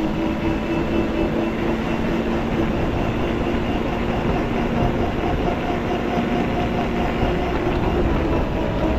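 Quad bike running at a steady speed while riding, a constant engine hum over wind and road noise; the hum drops a little in pitch near the end.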